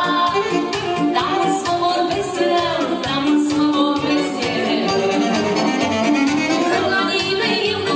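Live Romanian folk dance music: a woman sings into a microphone over an accordion band with a steady, fast beat.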